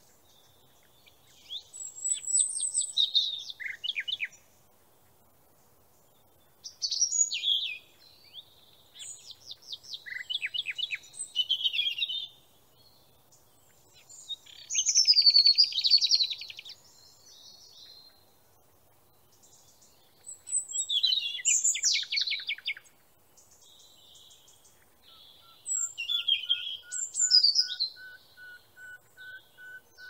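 Songbird singing in separate phrases of rapid trills and whistles, each a few seconds long with short pauses between. Near the end a steady run of lower, evenly spaced notes joins in.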